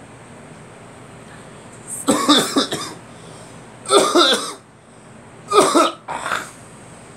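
A person coughing in three bouts about two seconds apart, each a quick run of two or three coughs.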